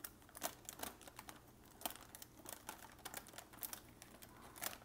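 Faint, irregular light clicks and taps of hands handling small objects, a few each second.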